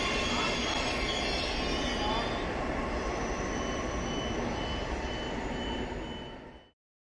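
A double-deck Flughafen-Express regional train running out along the track: a steady noise of wheels on rail, with thin high squealing tones and a faint pulsing high tone in the second half. It fades as the last car passes and cuts off abruptly near the end.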